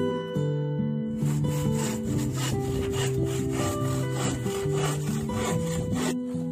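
Hand saw cutting through a sheet of 9 mm plywood in quick, even strokes, about four a second, starting about a second in and stopping shortly before the end, over background guitar music.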